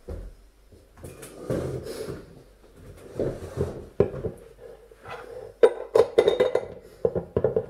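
A filled borosilicate glass drinking bottle being handled at a wooden table: rustling and knocks as it is set down, then a quick run of clicks and knocks in the last two seconds as its lid is screwed shut.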